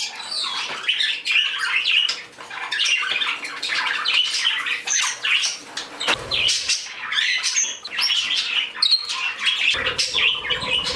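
A roomful of pet parakeets and a canary chirping and chattering, many calls overlapping without a break. Two brief low thumps, about six seconds in and near the end.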